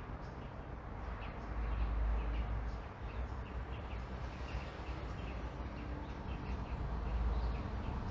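Morning neighbourhood ambience: small birds chirping in quick repeated short notes over a steady low rumble of distant traffic, which swells twice.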